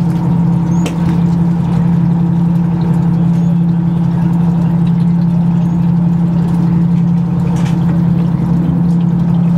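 Fishing boat's engine running steadily, a loud, even low drone.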